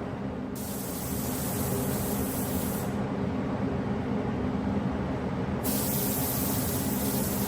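Compressed air hissing from a shop air tool in two stretches, turning on about half a second in, cutting off about three seconds in, and starting again near the end, over a steady machine hum.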